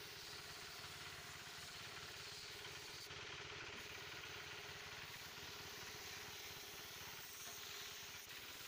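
Faint, steady motor hum with a low rumble and a hiss, like a workshop air compressor running to feed the paint spray gun.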